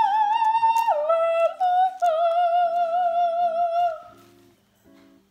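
Music: a high wordless sung melody with vibrato, holding long notes and stepping down in pitch about a second in, over steady plucked guitar notes. The voice fades about four seconds in, leaving faint guitar.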